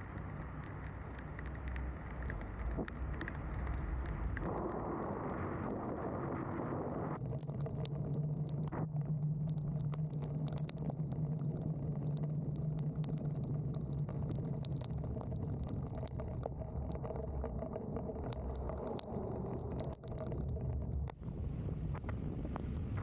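Electric Tesla Model 3 driving on rain-soaked pavement, heard from a camera mounted outside the car: a steady tyre hiss and road rumble with wind on the microphone. From about seven seconds in, scattered sharp ticks of raindrops strike it, and a low steady hum joins for several seconds.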